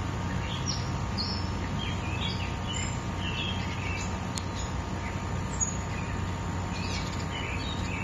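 Steady rush of a forest stream, with small birds chirping in short, scattered calls throughout.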